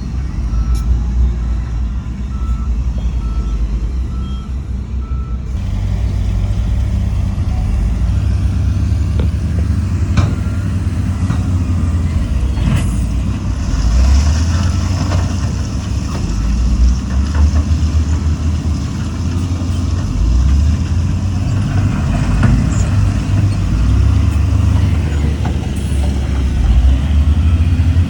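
Heavy diesel earthmoving machinery at work, a bulldozer and dump trucks, with a steady low engine rumble. A reversing alarm beeps at an even pace for the first five seconds or so, then stops. A brief hiss comes about halfway through.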